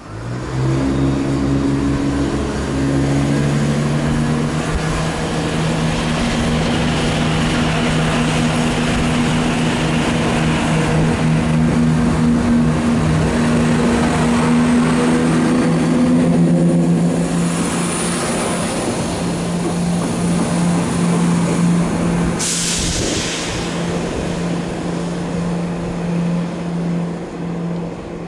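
Class 170 Turbostar diesel multiple unit pulling away and passing close by, its diesel engine note rising in pitch in steps as it accelerates and then holding steady. About two-thirds of the way through there is a short, loud burst of air hiss.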